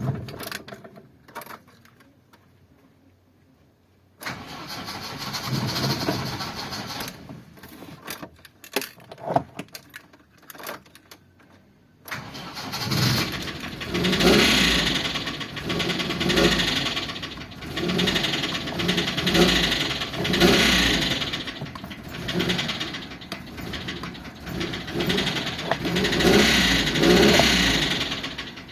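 ZMZ-406 engine starting about twelve seconds in, after a quieter stretch with scattered noises, then revved up and down about every two seconds. It has a knock that the owner suspects comes from the hydraulic lifters.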